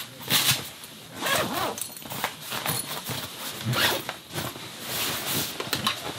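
Zippers on soft travel bags being pulled open in a series of short runs, with the rustle of the bags being handled.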